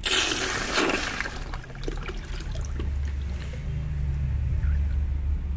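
Water and air gush out with a loud hissing rush as a valve on the freshly primed DAB 3 hp pump line is opened, fading after about a second and a half. A steady low hum from the running pump then builds underneath.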